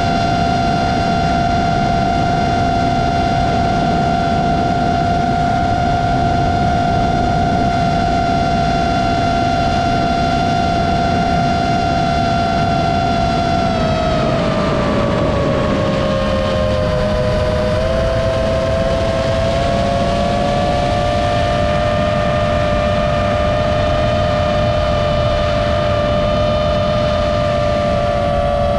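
An FPV quadcopter's brushless motors and propellers whine at a steady pitch over a constant rushing noise. About halfway through, the pitch drops as the motors slow, then settles a little lower as two close tones.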